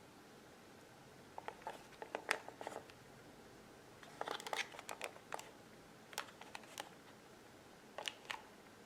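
Four short clusters of small sharp clicks and crinkling over a faint steady hiss.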